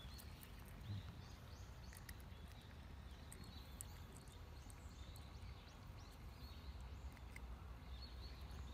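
Quiet outdoor ambience: a steady low rumble with faint, scattered bird chirps and a few light clicks.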